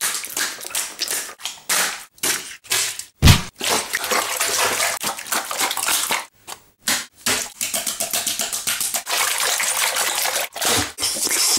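Raw whole chicken carcass being stomped with a bare foot and torn apart by hand: a rapid, irregular run of wet squelches and slaps of raw meat and skin, with a heavier thud about three seconds in.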